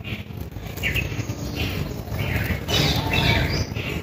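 Dry rice stalks (paddy ears) rustling in irregular bursts as a bundle of them is handled and stalks are pulled out one by one.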